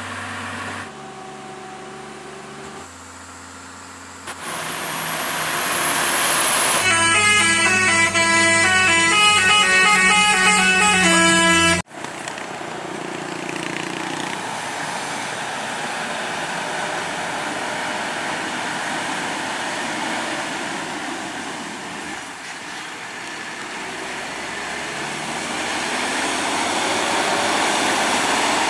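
A horn sounds a run of held notes that step from one pitch to another for about twelve seconds, then cuts off abruptly. After it, heavy truck engines run under a steady wash of road noise that grows louder near the end as a truck approaches.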